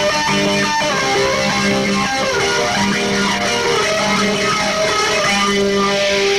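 Glam-punk rock band playing an instrumental intro, led by electric guitar.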